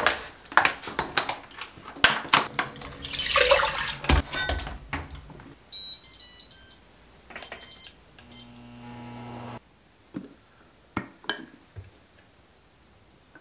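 Pots and a steel bowl clattering in a stainless steel sink, with a short rush of running tap water. Then a series of short electronic beeps, a low hum that cuts off suddenly, and a few light knocks.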